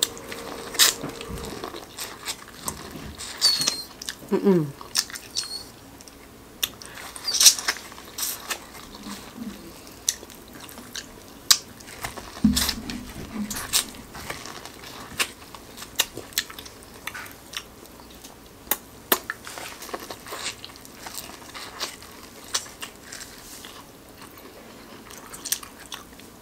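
Close-miked biting and chewing of sauce-coated corn on the cob: irregular crisp kernel pops and wet mouth clicks, one after another.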